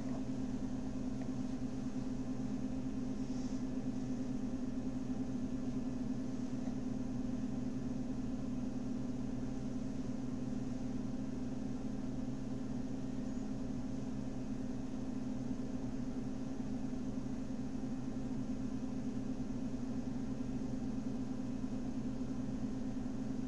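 A steady low hum with a few fixed pitches in it, unchanging throughout.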